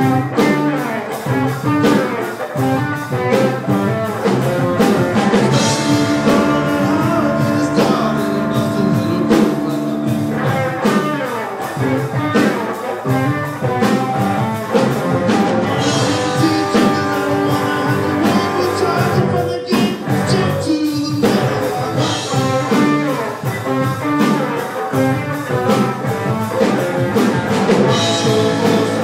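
A live rock band playing: electric guitar, electric bass and a drum kit, loud and steady throughout.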